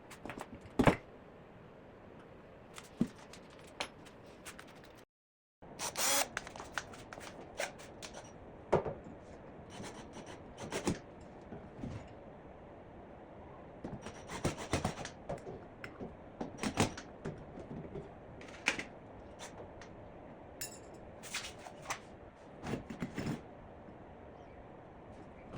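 Wood and metal hardware being handled during hands-on assembly: scattered irregular knocks, clicks and scrapes, with no power tool running. The sound drops out completely for about half a second around five seconds in.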